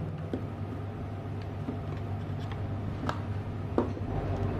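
A few light plastic clicks and taps from handling a JXD handheld MP4 player and pressing its buttons, over a steady low hum.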